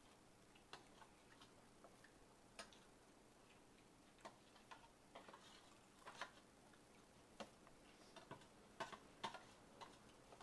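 Faint eating sounds: scattered soft clicks and taps at an irregular pace, a little more frequent and louder in the second half.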